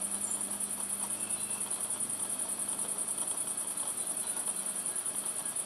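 Insect stridulation: a continuous, rapidly pulsing high-pitched trill, like a cricket or bush-cricket singing, with a faint steady low hum underneath.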